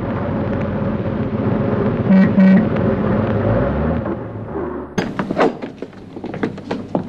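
Car driving on a road with its engine and tyre noise, the car horn giving two short honks about two seconds in. After a sudden change about five seconds in come a few sharp clicks and knocks.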